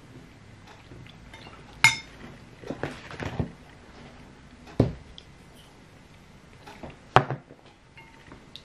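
Metal spoon clinking and scraping against a ceramic soup plate during eating: a few sharp, ringing clinks, the loudest about two seconds in and about seven seconds in, with softer knocks between.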